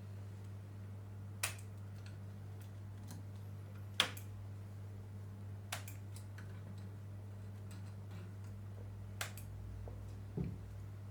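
Scattered sharp clicks and taps, about five spread over the stretch, the loudest about four seconds in, from small tools and parts being handled while a one-wheel's cover plate and foot pads are refitted. Underneath runs a steady low hum.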